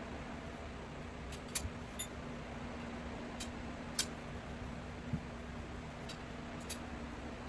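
Scattered sharp clicks and light knocks as the metal poles and connectors of a grow-tent frame are handled and fitted together, about half a dozen in all, over a steady low hum.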